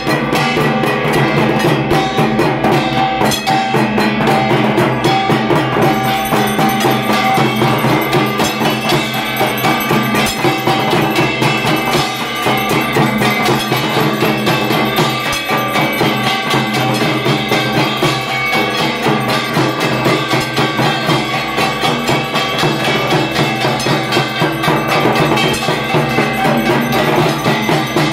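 Dhak drum beaten in a fast, unbroken rhythm, with kansar (small bronze gongs struck with sticks) clanging steadily along with it.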